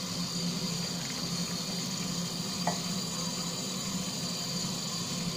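Tap water running steadily into a colander in a sink while hands rub sand and dirt out of a cauliflower mushroom, with one light click near the middle.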